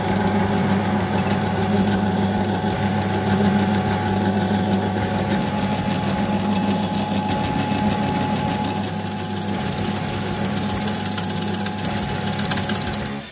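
Benchtop drill press running with a steady motor hum. About two-thirds in, a high, steady squeal sets in as the bit is fed down into the gearmotor's steel D-shaft, which may be hardened, through guide bearings in a 3D-printed jig. All sound stops abruptly just before the end.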